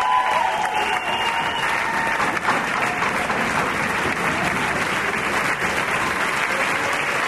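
An audience applauding steadily, a dense even clapping; a few held musical tones fade out in the first two seconds.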